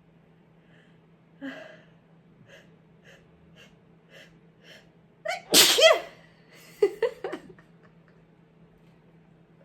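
A person sneezing while sick. A few quick catching breaths build up, then one loud voiced sneeze comes about five and a half seconds in, with a couple of short breathy sounds just after it.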